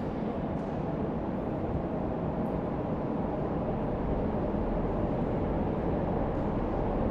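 Subway train running noise: a steady rumble and hiss of wheels on track with no motor whine, slowly growing louder.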